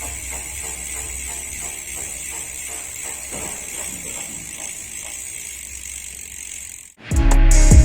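Novatec D042SB bicycle rear hub's freehub spinning with a steady ratchet ticking and a scraping hiss from inside the hub, the sign of a manufacturing defect in the freehub. Loud music with drums starts about seven seconds in.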